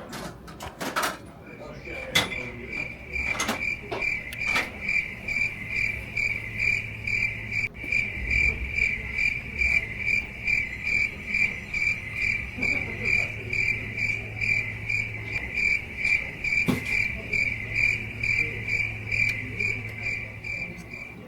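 Steady rhythmic chirping at one unchanging pitch, about three chirps a second, running through nearly the whole stretch. A few sharp metallic clicks of tools being handled come in the first few seconds.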